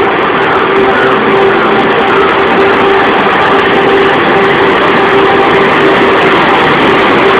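WCAM2P dual-current electric locomotive moving past at the head of a passenger train: a loud, steady run of wheel-and-rail and machinery noise with a steady hum running through it.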